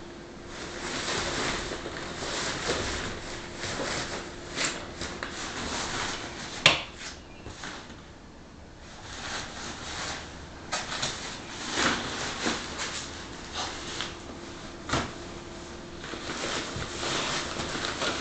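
Hollow plastic ball-pit balls clacking and knocking together in irregular bursts, with rustling of a nylon pop-up play tent as a toddler moves among them; one sharp knock stands out about seven seconds in.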